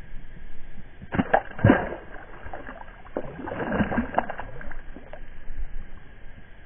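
Water splashing in two short bouts, one about a second in and a longer one a little past the middle.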